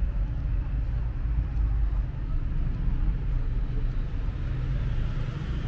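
Road traffic: a steady low rumble of cars running along the street.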